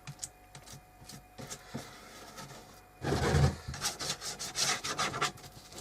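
A paintbrush scrubbing a thick, sticky coating into cloth over a wooden frame. A few light strokes come first, then about two seconds of quicker, louder rubbing strokes from about three seconds in.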